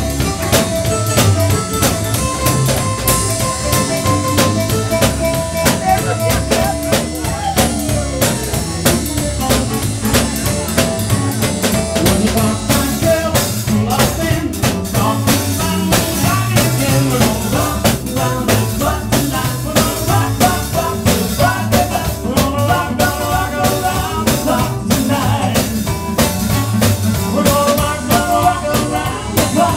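A live band playing: a drum kit keeps a steady beat with many sharp drum and cymbal hits, while a saxophone plays held melodic lines over it.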